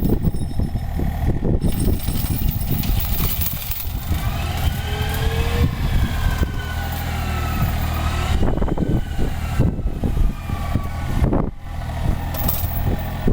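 Excavator diesel engine running under load with a hydraulic mulcher working. In the middle, a whine rises and falls in pitch a few times, and sharp knocks come at irregular moments throughout.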